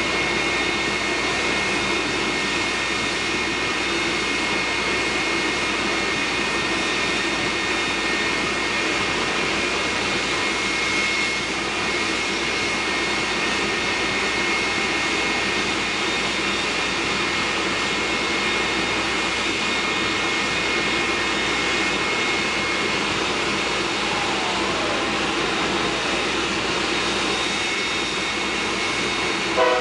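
Jet truck's turbine engine running steadily at idle: a constant rush with a high tone held steady over it. Right at the end a horn blast begins.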